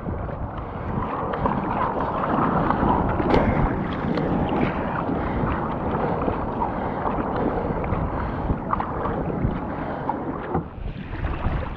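Paddling a fishing kayak on open sea: water splashing from the paddle strokes and sloshing around the hull, with wind buffeting the camera microphone. A few sharp splashes or knocks stand out.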